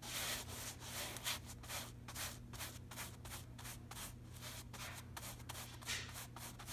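Paintbrush scrubbing paint into upholstery fabric in quick back-and-forth strokes, a scratchy rasp about three times a second.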